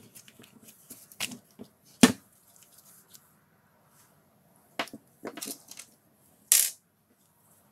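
The plastic handle housing of a DeWalt DW566 drill being handled and pulled apart: irregular sharp clicks and knocks of hard plastic. The loudest comes about two seconds in, and a rattle and a heavier knock come in the last couple of seconds.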